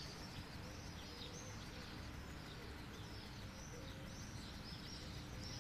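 Faint bird chirping outdoors: a steady run of short, high chirps, several a second, over a low background hum.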